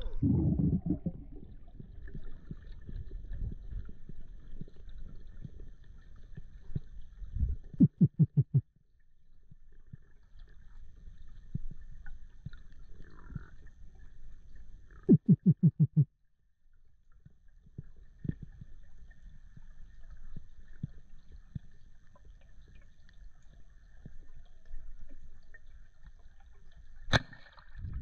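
Water splashing at the surface, then the muffled, low rumble of water heard from a camera underwater during a spearfishing dive. Two short runs of rapid, even knocking, about eight a second, stand out as the loudest sounds, and a single sharp click comes near the end.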